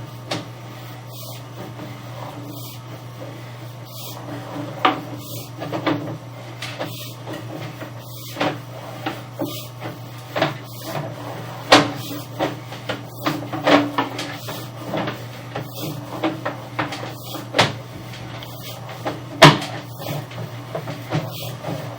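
Drain inspection camera being pushed along a drain pipe: irregular knocks and clicks from the push cable and camera gear over a steady low hum.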